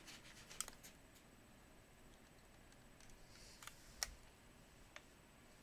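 Faint clicks and taps of a tool on the plastic housing of a Black & Decker DustBuster hand vacuum as it is worked open at the seam. There is a quick cluster of clicks in the first second, a sharper click about four seconds in, and one more a second later.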